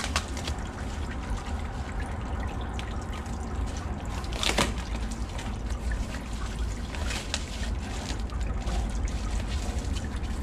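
Cardboard box and plastic wrapping being handled, rustling and crinkling in short bursts, with one louder crinkle about halfway through, over a steady low rumble.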